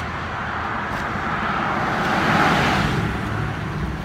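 Road traffic: a car passing close by, its tyre and engine noise swelling to a peak about halfway through and then fading.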